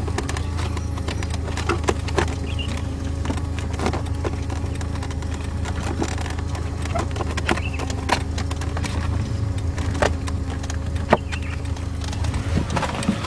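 1990 BMW 318i's engine idling steadily, with a low, even hum, overlaid by scattered short clicks and knocks.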